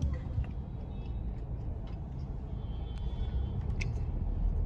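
Low, steady rumble of a car's engine and road noise heard from inside the cabin in slow traffic, with a few faint clicks and a brief faint high tone about halfway through.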